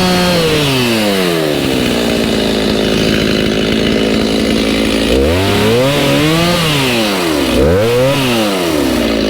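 Chainsaw engine at high revs, falling to a low idle about a second and a half in, then revved up and back down three times near the end.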